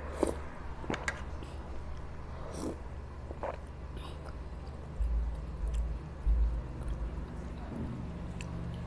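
Close-miked eating of rasabali, soft fried cheese patties in sweetened milk: wet chewing, lip smacks and a few sharp clicks, with a metal spoon scooping from the tray. Two short, dull low thumps come a little after halfway.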